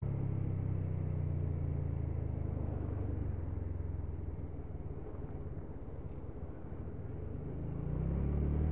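Motorcycle engine running, with wind and road noise on the on-board microphone; it eases off through the middle and picks up again near the end as the bike accelerates.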